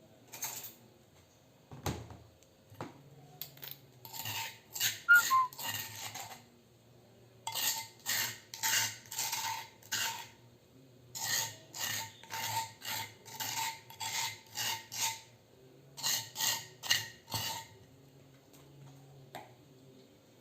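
A metal utensil scraping and clinking against cookware in quick runs of strokes, several bursts separated by short pauses, with a single low knock near the start, as when tempe is stirred or turned in flour batter.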